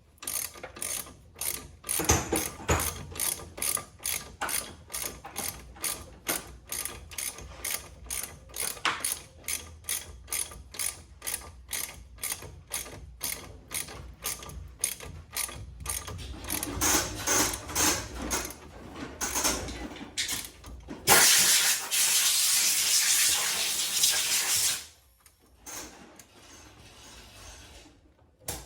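Hand ratchet clicking in steady strokes, about two or three clicks a second, as bolts on a brake caliper are run in. About 21 seconds in, a loud steady hiss for about four seconds.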